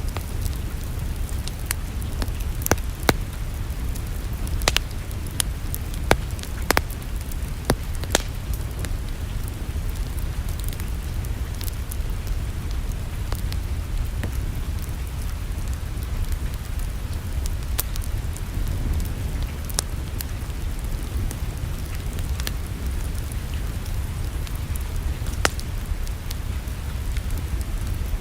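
Wood fire crackling in a fireplace over a steady low rumble, with scattered sharp pops, most of them in the first eight seconds or so.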